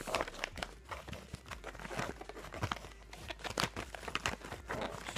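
Yellow padded paper mailer being handled and torn open, its paper crinkling and tearing in irregular crackles and rustles.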